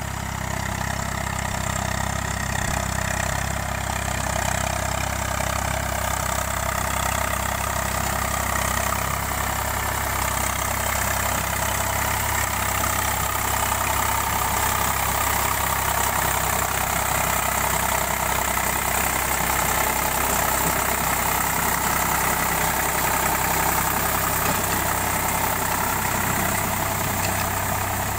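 Eicher 485 tractor's three-cylinder diesel engine running steadily under load while pulling a rotavator through a flooded paddy field to puddle the mud.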